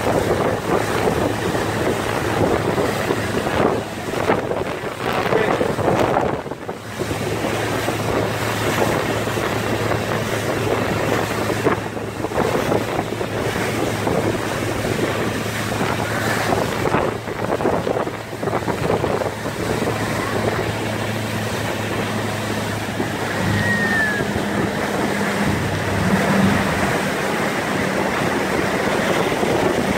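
Speedboat engine running at speed under a steady rush of churning wake water, with wind buffeting the microphone. The engine's low hum holds steady, then shifts up in pitch for a few seconds near the end.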